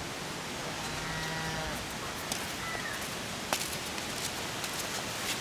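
A dairy cow mooing once, a short, even-pitched call about a second in, over a steady background hiss, with a couple of sharp clicks later.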